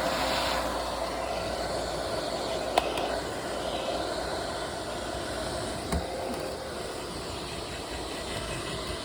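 Hair dryer running steadily, with two brief sharp clicks, about three and six seconds in.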